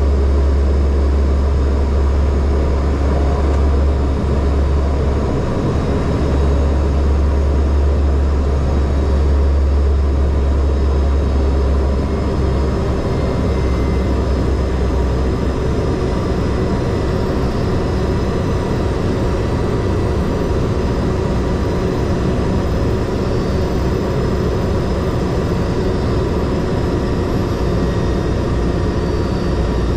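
Pratt & Whitney PT6A turboprop engine and propeller of a Cessna 208 Grand Caravan, heard as a loud, steady drone inside the passenger cabin. Its tone shifts slightly about twelve seconds in.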